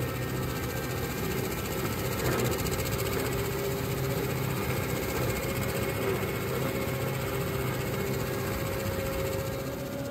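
Ursus C-330 tractor's two-cylinder diesel engine running steadily under load, driving a PTO-powered flail mower whose spinning rotor shreds the grass, with a steady whine over the engine.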